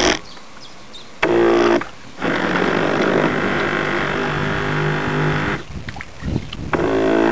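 Radio-controlled model boat's motor running close up, heard from a camera mounted on the boat, with water noise. The motor drops out for about a second near the start, briefly again, and once more later on.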